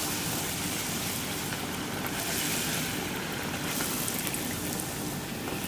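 A puri deep-frying in very hot oil in a kadhai: a steady sizzle and bubbling of the oil around the dough.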